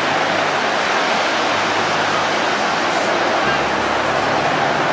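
Steady wash of ocean surf breaking on the shore, an even hiss with no let-up.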